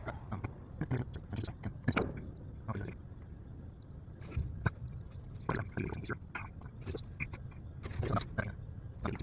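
Laptop keyboard being typed on: irregular clicks and taps, several a second, over a steady low rumble.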